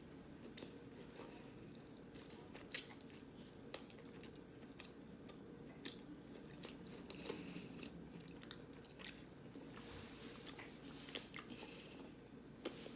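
Close-up mouth sounds of someone chewing soft jackfruit nuggets, with scattered small wet clicks and smacks over a faint steady hum.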